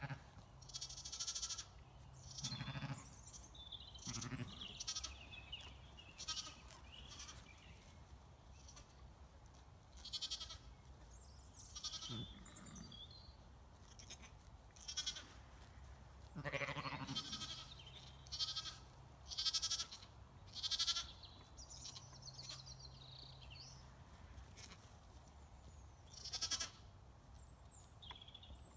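Young Zwartbles lambs bleating: short, high-pitched calls that come again and again, a few of them lower and fuller.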